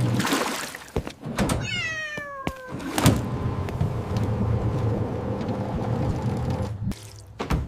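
A single cat meow falling in pitch, about two seconds in, over a steady low hum. A sharp knock follows about a second later.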